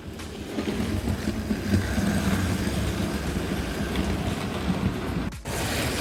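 Tender-driven Flying Scotsman model locomotive running on the track: a steady rumble of motor and wheels, broken briefly about five and a half seconds in.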